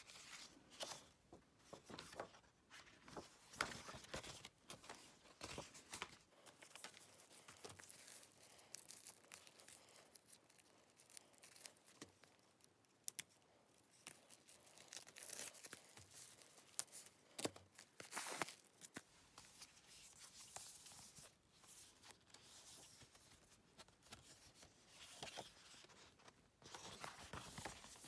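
Faint, intermittent rustling and crinkling of glossy paper and plastic as a K-pop album's photobook is handled and its cover and pages are flipped.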